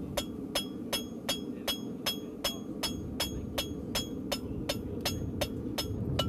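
Farrier's hammer striking a steel horseshoe on an anvil in an even rhythm, about three ringing blows a second, as the shoe is shaped. A steady low noise runs underneath.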